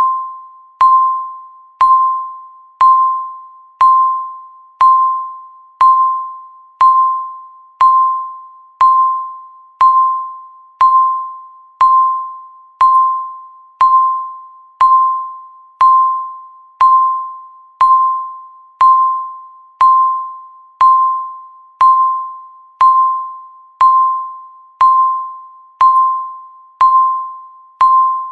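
Countdown timer beeping once every second: a single high electronic tone that starts sharply and fades away, each beep marking one more second gone.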